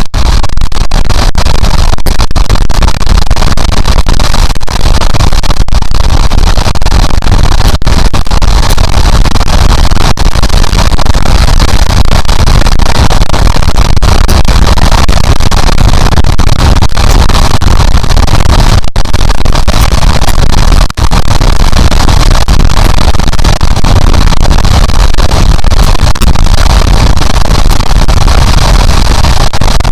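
Heavy wind rush buffeting the helmet-camera microphone of a motorcycle at highway speed, loud and near clipping, with the motorcycle's engine and road noise buried under it.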